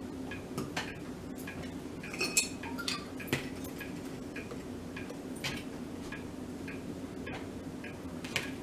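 Scattered light clicks and taps of a plastic spice bottle and measuring spoon being handled while dried minced onion is measured out, over a steady low hum.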